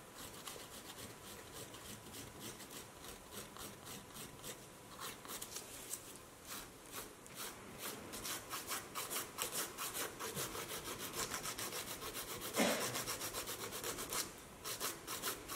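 Hand nail file rasping back and forth over a cured gel nail in quick, short strokes, several a second. The strokes are faint at first and grow louder and closer together after about halfway.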